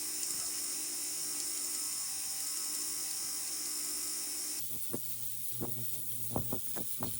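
A small jeweler's cleaning machine running steadily with a high hiss as the silver ring is cleaned after stone setting. About four and a half seconds in, the sound changes to a quieter steady noise with several sharp clicks.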